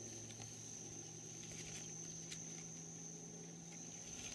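Faint outdoor background: a steady high-pitched whine and a low hum, with a few light clicks from handling the camera and the tree.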